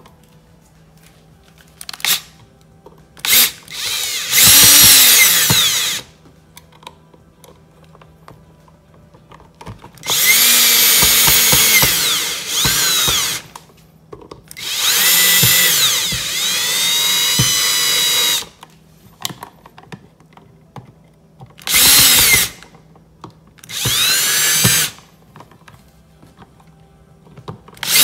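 Power drill run in about eight separate bursts, from under a second to about four seconds long, its whine rising in pitch as it spins up and falling as it stops.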